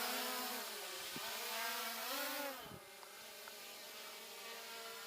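SJRC F11s quadcopter drone's electric rotor motors whining just after take-off, the pitch shifting up and down as the rotors change speed. The sound grows gradually fainter as the drone flies away.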